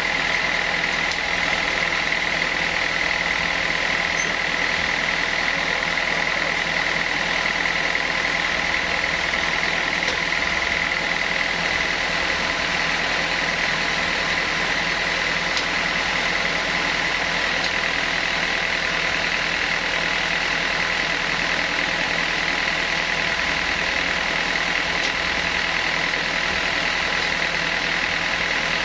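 Sawmill saw machinery running steadily: a constant mechanical drone with a steady high whine.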